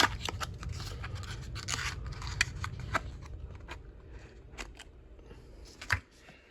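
Boxes of pistol ammunition being handled: a run of clicks, light knocks and scratchy rubbing of cardboard, busiest in the first few seconds and thinning out, with a sharp click near the end.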